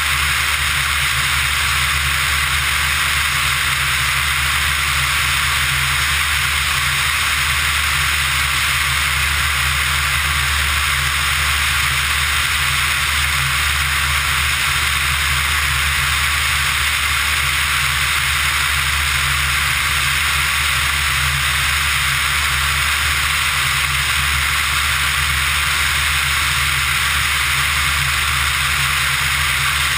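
Steady drone of a Pipistrel Virus ultralight's Rotax 912 engine and propeller in level cruise, under a constant rush of airflow over the outside of the airframe. Nothing changes in pitch or level.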